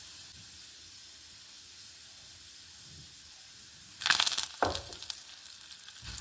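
Tempering oil in a small pan, with mustard seeds, urad dal and dried red chillies frying in it, sizzling steadily. About four seconds in there is a sudden loud burst of spluttering crackle as curry leaves go into the hot oil, and it fades over the next couple of seconds.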